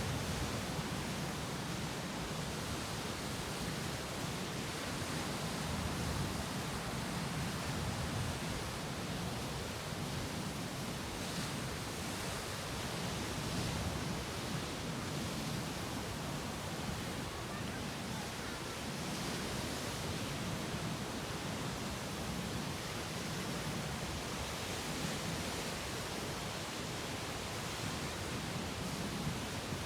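Sea waves breaking against rocks and washing ashore: a steady wash of surf that swells a little now and then.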